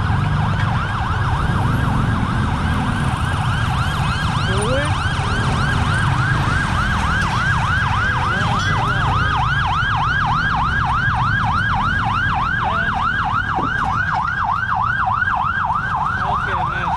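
An emergency vehicle siren in a fast yelp, rising and falling about three times a second and growing clearer a few seconds in, over a steady low rumble of road traffic and wind.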